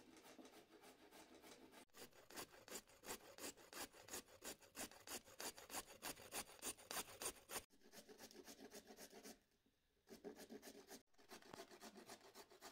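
Raw carrots grated on a handheld stainless steel grater, a quick run of even scraping strokes, several a second, loudest in the middle, with a brief pause about ten seconds in.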